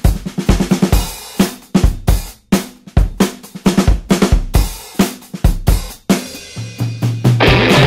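Background music: a drum kit playing a steady rock beat, with bass and then electric guitar coming in near the end.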